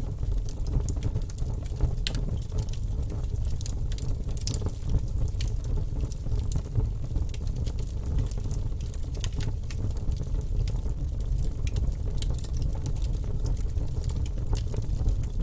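Wood fire burning in a fireplace: a steady low rumble of flames with frequent, irregular crackles and pops.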